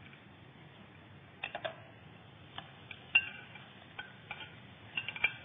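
A few light clinks and knocks of chopsticks and a plate against a wok as a whole marinated snakehead fish is slid in to fry. The loudest knock comes about three seconds in, with a quick cluster of clinks near the end.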